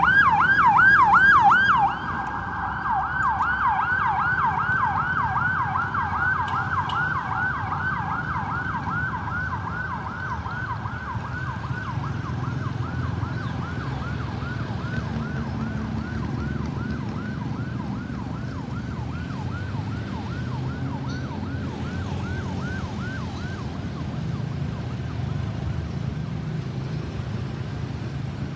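Ambulance siren on a fast yelp, rapid rising-and-falling wails repeating several times a second. It is loud at first, drops sharply about two seconds in, then fades away over the next twenty seconds as the vehicle moves off, leaving a low traffic rumble.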